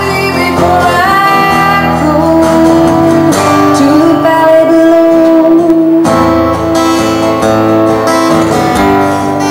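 A singer holding and sliding between long sung notes over a strummed acoustic guitar.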